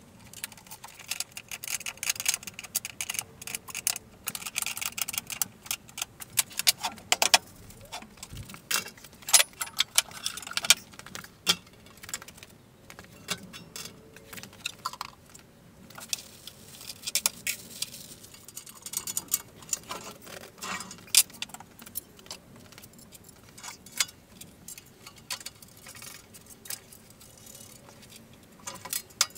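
Bolts, washers and steel parts of a dust collector's wheeled base clinking and rattling during assembly, in many sharp, irregular clicks and jingles.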